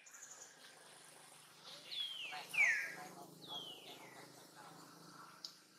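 Baby long-tailed macaque crying, three high-pitched squeals that each fall in pitch, about two seconds in and then twice more over the next second and a half, while an adult holds and pulls at it.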